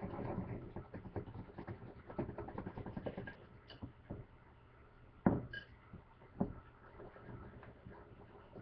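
Wire whisk beating a syrupy brown sugar, maple syrup and mustard mixture in a bowl: rapid clicking and scraping against the bowl, busiest in the first few seconds and then lighter. Two sharper knocks about five and six seconds in.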